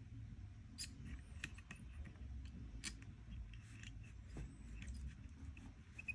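Faint, scattered clicks and light ticks of small hand tools and parts being handled while working on an electric guitar, over a low steady rumble.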